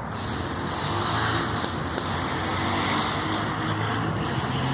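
Steady distant engine rumble, slowly growing louder, with a low hum running under it.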